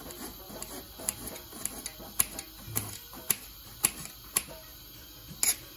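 Kitchen knife chopping a red chili pepper on a glass cutting board: sharp, irregular clicks as the blade strikes the glass, about two a second.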